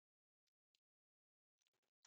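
Near silence, broken only by a few very faint short ticks.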